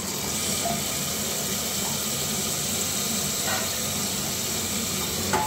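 Diced potatoes sizzling in hot oil in an aluminium pressure cooker, just after being tipped in: a steady, even hiss.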